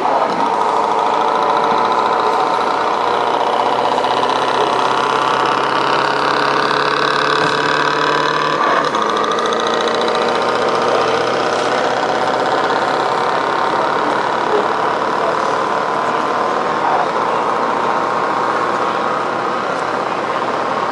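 Simulated diesel truck engine sound from the speaker-based sound modules of radio-controlled model trucks: a steady engine drone whose pitch creeps slowly upward, with a lower hum dropping out about nine seconds in.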